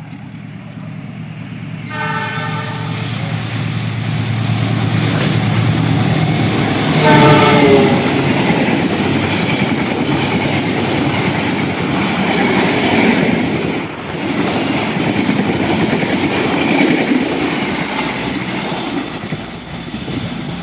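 Indonesian long-distance passenger train, hauled by a diesel locomotive, approaching with its engine running and the horn sounding twice: one long blast about two seconds in and a shorter one about seven seconds in. The coaches then pass close by with steady wheel rumble and rail clatter.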